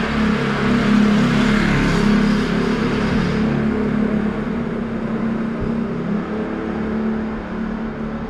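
A motor vehicle running close by with a steady engine note and tyre and engine noise, loudest in the first couple of seconds and then growing fainter.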